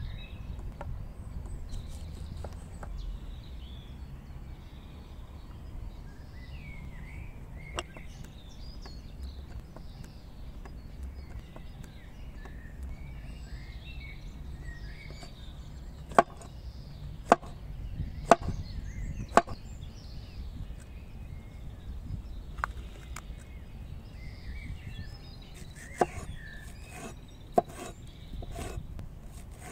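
Cleaver chopping bell pepper on a wooden cutting board: a run of sharp knocks about one a second midway, then a few more and a quicker run near the end. Faint bird chirping and a steady low rumble underneath.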